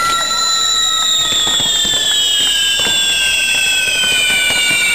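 Fireworks display finale: several high whistles slide slowly down in pitch together over a dense crackle of small pops.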